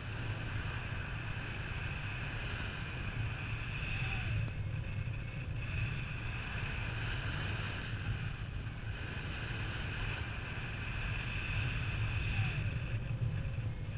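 Steady wind rushing over the camera microphone of a paraglider in flight, with a low rumble and a hiss that swells and eases a little.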